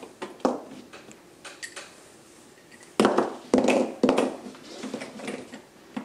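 Plastic LEGO parts clicking and knocking as a LEGO floodgate model is worked by hand on the game mat: a few light clicks, then three sharp knocks about half a second apart around the middle, each with a short rattle.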